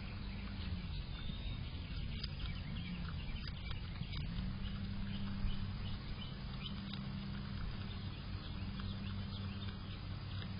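Groundhog chewing food held in its paws: a stream of small, quick clicks, over a steady low hum.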